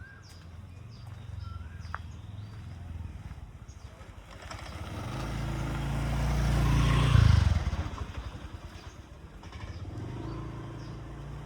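A motor vehicle passes close by, its engine growing louder over a few seconds, peaking about seven seconds in, then fading. A low engine hum sits underneath before and after.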